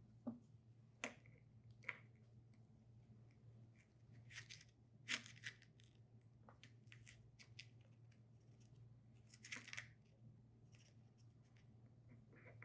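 Faint clicks and scratchy rustling of a plastic pipette being worked in a small plastic cup as sodium bisulfite is collected into it, with short spells of rustling about four and nine and a half seconds in.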